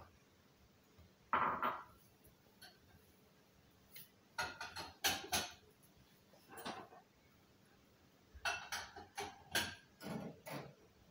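Knocks and taps from a toddler crawling on a hardwood floor and patting at things, coming in several short clusters with quiet gaps between.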